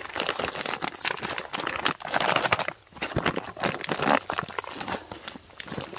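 Plastic packaging of a First Strike MRE crinkling and rustling as the cut-open bag is handled and its ration pouches are pulled out, in irregular bursts with a brief lull about three seconds in.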